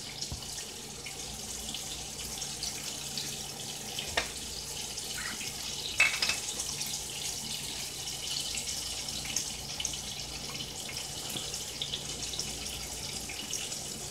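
Fish and fries sizzling in hot oil in pans on the stove: a steady sizzle with small crackling pops. A couple of light knocks, about four and six seconds in.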